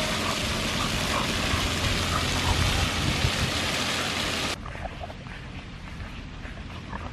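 Splash-pad fountain jets splashing, a steady hiss of falling water that cuts off suddenly about four and a half seconds in, leaving a much quieter outdoor background.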